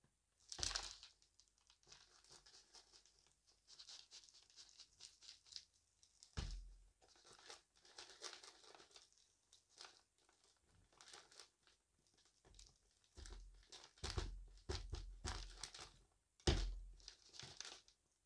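Dry debris and glitter rustling and crinkling as it spills out of a vacuum cleaner's clear dust bin onto a pile on carpet, with a few sharper knocks from the bin.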